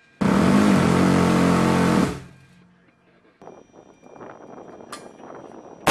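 Phalanx CIWS 20 mm six-barrel Gatling gun firing one continuous burst of about two seconds, heard as a steady low buzz of rapid shots that stops abruptly.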